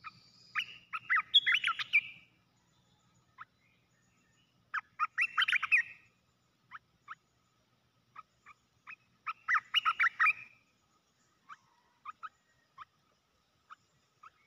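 Olive-winged bulbul singing: three short phrases of quick, tumbling notes a few seconds apart, with single short call notes scattered between them.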